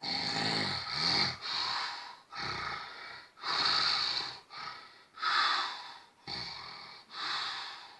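A man snoring loudly: a quick run of about eight harsh, rattling snorts and breaths, one after another.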